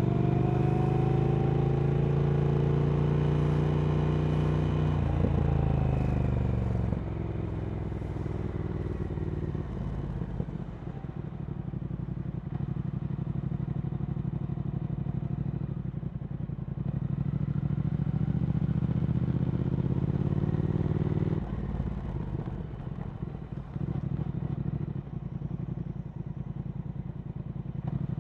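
Triumph Speed Twin 1200's parallel-twin engine through a Vance & Hines slip-on exhaust, ridden on the road. The revs climb for the first few seconds and then drop; after a quieter stretch they climb again and fall off about three quarters of the way through.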